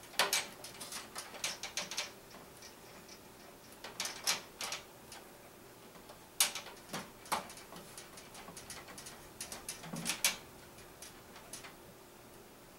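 Irregular clicks and light knocks, in several short clusters, as water-cooling tubing and fittings are handled and pushed against the metal frame of a computer case.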